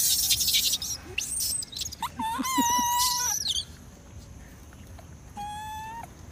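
Baby macaque crying in distress: harsh screams at the start, then a long high-pitched wail about two seconds in, and a shorter wail near the end.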